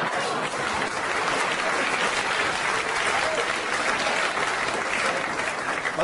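Live audience applauding.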